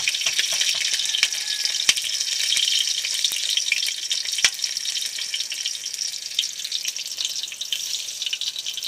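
Garlic frying in hot oil in a wok, a steady spattering sizzle, with a couple of sharp clicks and stirring near the end.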